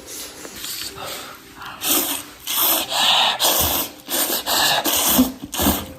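A string of close-up slurps of instant noodles and broth, about eight short hissing bursts in quick, irregular succession starting about two seconds in.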